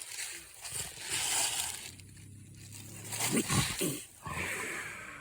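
Bobcat caught in a foothold trap growling at close range, loudest about three and a half seconds in.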